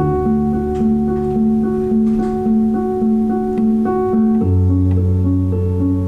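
Instrumental music: a gently repeating plucked, guitar-like figure of notes about twice a second over held bass notes, the bass moving to a lower note about four and a half seconds in.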